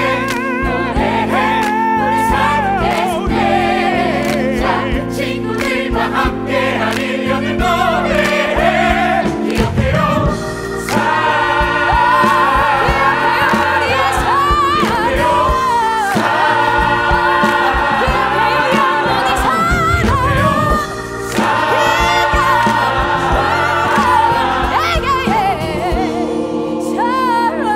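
A choir of musical-theatre voices singing a gospel-style number with accompaniment. A wavering solo voice carries above the ensemble, and the music briefly thins twice, about a third and about three quarters of the way through.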